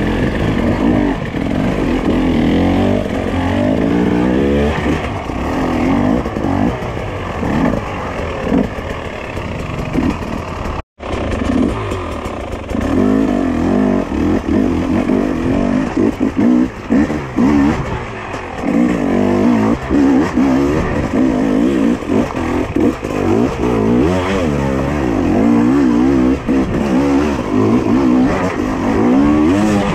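Husqvarna TE300i two-stroke single-cylinder enduro engine, revving up and down over and over under short blips of throttle. The sound cuts out for a moment about eleven seconds in.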